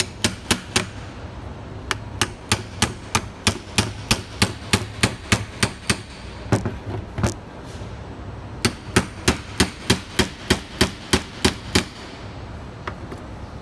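Hammer striking the housing of a Seltec Valeo A/C compressor again and again, about three sharp blows a second with a short pause midway, to split the case at its centre seam.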